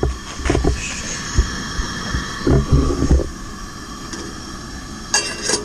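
Steady hiss of a two-burner propane camp stove heating a stainless pot, under low thumps of wind buffeting the microphone. A short metallic rattle near the end as the pot lid is handled.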